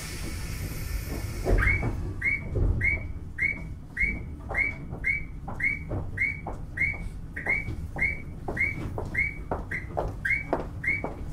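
Railway level-crossing warning bell ringing steadily, about three dings a second, heard from inside a Randen tram at a station stop. A hiss in the first second or so comes before the bell starts.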